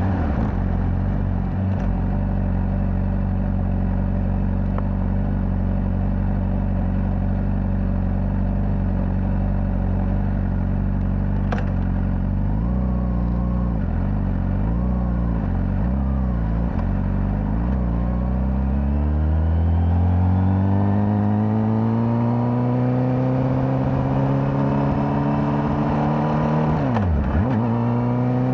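Honda CBR600RR's inline-four engine through its stock exhaust. It drops in pitch at the start and runs low and steady for about ten seconds. After a few small throttle changes it pulls up through the revs in a long rising tone, with a sharp break for a gear change near the end, then rises again.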